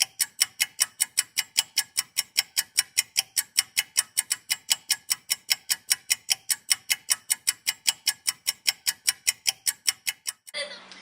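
Rapid, even clock-like ticking, about five sharp ticks a second, that stops abruptly near the end.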